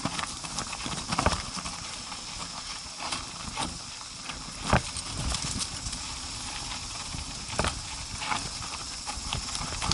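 ATV jolting along a rough dirt trail: irregular knocks and clatters, the loudest a little under five seconds in, over a steady rushing noise.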